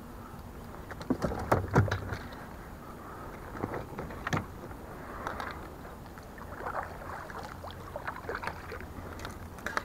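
Scattered knocks, splashes and rustling in a small plastic kayak as a just-landed largemouth bass is handled beside the hull. The loudest knocks come between one and two seconds in, with another sharp one a little after four seconds.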